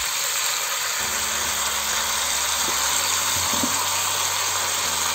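Pig's trotters and vegetables sizzling steadily in hot olive oil in a pot, with a low hum underneath.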